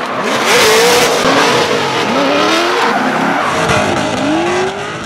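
Drift cars sliding in tandem: engines revving up and down at high throttle over the squeal and hiss of spinning, sliding tyres, fading away near the end.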